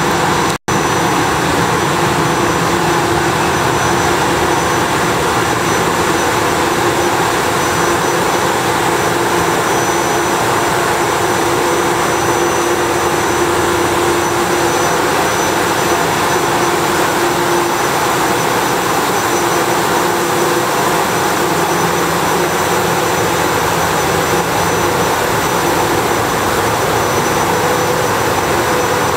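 A standing SEPTA Silverliner IV electric railcar's onboard equipment running: a loud, steady hum and rush with a high whine over it, broken for an instant near the start.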